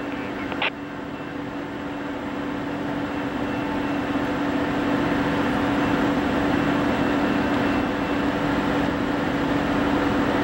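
Approaching Norfolk Southern freight train led by GE C44-9W diesel locomotives: a steady engine drone that grows louder over the first several seconds, then holds. A short click about a second in.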